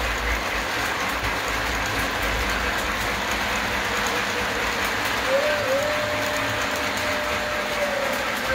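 Model freight train running on its track, a steady rumble of wheels rolling past. About five seconds in, a steady tone comes in and holds for about two and a half seconds.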